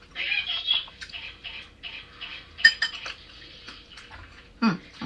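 Close-up chewing and mouth sounds of someone eating a mouthful of food with chopsticks. A sharp clink of chopsticks against the glass bowl a little past the middle is the loudest sound. A short vocal sound falling in pitch comes near the end.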